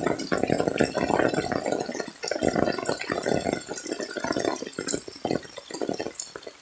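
Heavy rain falling, a dense patter of drops hitting close by, fading away near the end.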